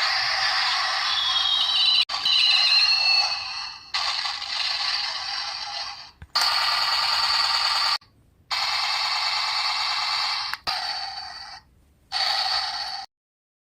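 A series of noisy sound-effect clips spliced together with abrupt cuts between them. About a second in, a whistling tone glides apart into two tones.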